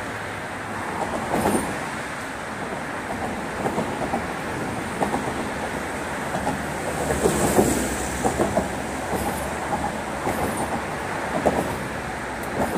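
Steady rumble of vehicle traffic on a bridge, with irregular clicks and clatters, which grows louder about seven seconds in.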